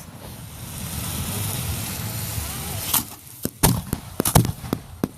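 Fireworks going off: a steady rushing hiss for about three seconds, then a run of sharp bangs and crackles.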